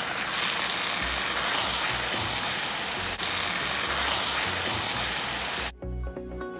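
Chow mein noodles, chicken and vegetables sizzling loudly in a hot wok as they are tossed, with music underneath. The sizzle cuts off abruptly about five and a half seconds in, leaving the music alone.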